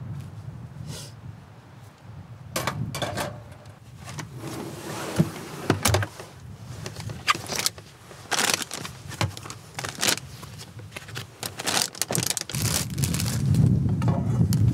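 Kitchen handling at a camper van's rear galley: a string of clicks, knocks and clinks as cookware is handled and a fridge drawer of food is opened and rummaged. Near the end a tap starts running steadily into the sink.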